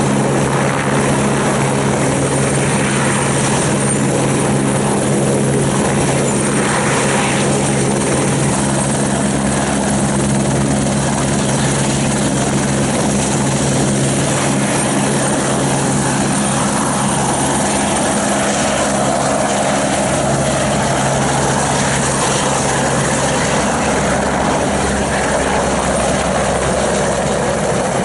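Helicopter's main rotor and turbine running at hover close to the ground, a steady, loud beat and whine. In the second half the sound changes as the helicopter lifts off and banks away.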